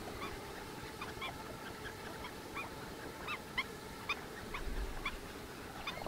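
A flock of waterfowl calling: many short honking calls, each rising at the end, overlapping one another. A brief low rumble comes near the end.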